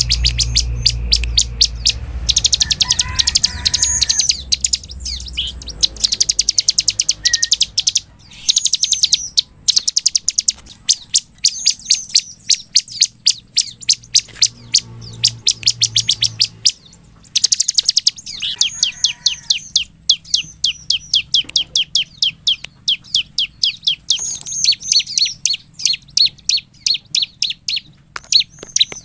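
A ciblek (prinia) in full song: long trains of rapid, sharp high chips, many per second, in runs of several seconds broken by short pauses.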